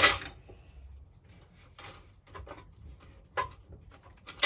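A few separate light clicks and knocks as the lawnmower's recoil starter housing and its sprung-out coil spring are handled.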